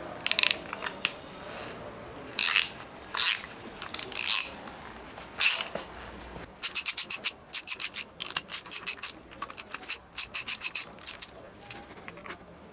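Ratchet wrench working the bolt at the bottom of a Honda SH300i front fork leg: a few longer rasps from the ratchet in the first half, then a quick run of clicks, about five a second.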